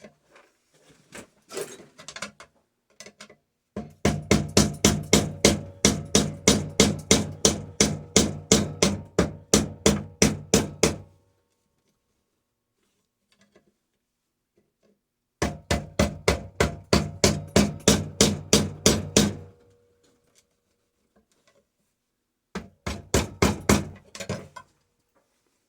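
Hammer blows on the steel shell of a sealed refrigeration compressor being cut open, at a quick, even pace of about three a second, with the shell ringing under them. A few light taps come first, then three runs of blows: a long one of about seven seconds, one of about four seconds and a short one near the end.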